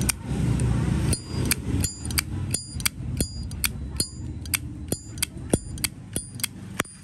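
Zippo lighters' hinged lids flicked open and snapped shut over and over: a quick run of sharp metallic clicks, about three a second, many with a high ringing clink. The lids have been tuned to sound loud and ringing.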